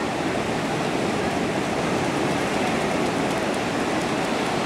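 Ocean surf breaking and washing up the beach: a steady rush of water.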